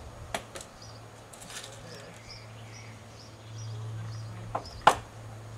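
A few sharp clicks from handling the Diana Model 1 air rifle between shots, the loudest near the end, with a small bird chirping over and over and a steady low hum behind.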